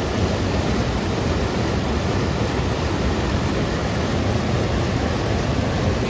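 Rushing water of a waterfall: a steady, unbroken rush.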